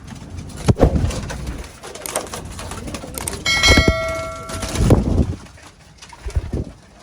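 Racing pigeons cooing in a loft, with knocks and handling sounds and a short ringing tone about halfway through.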